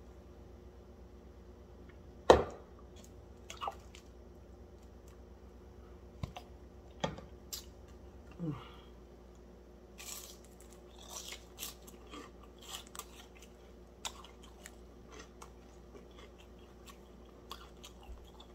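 Close-up chewing of crispy breaded fried fish, with crisp crunches between quiet stretches and a thicker run of crunches about ten seconds in. A single loud, sharp snap stands out about two seconds in.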